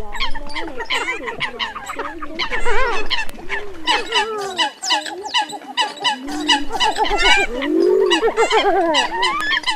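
A dense chorus of Eurasian coots calling over one another, with many short overlapping calls, some sliding up and down in pitch. It is a recorded lure call of the kind played to draw migrating coots into night nets.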